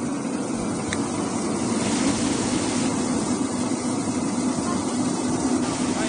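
QD-MS-800 brush-roller washing and peeling machine running: water spraying steadily from the spray bar onto ginger tumbling on the rotating brush rollers, over a steady low motor hum. The hiss briefly grows brighter about two seconds in.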